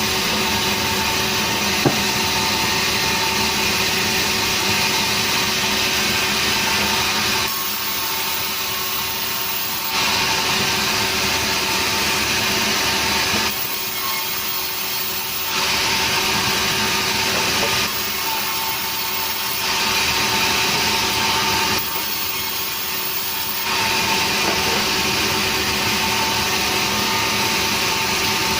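A sawmill saw running and cutting nering timber, with a steady machine hum underneath. The sawing noise swells and eases in turns every few seconds. There is a sharp click about two seconds in.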